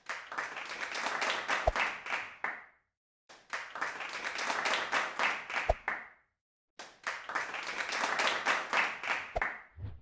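Recorded applause, three bursts of crowd clapping each about two and a half seconds long and cutting off abruptly into silence, each with one sharp click partway through.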